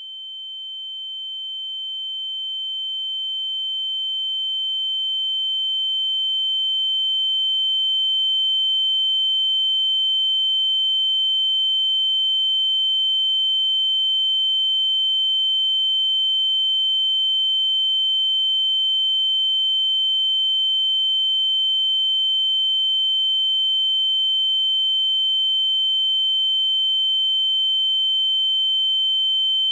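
Ear-ringing (tinnitus) sound effect: a single steady high-pitched tone that swells in over the first several seconds and then holds at a constant level.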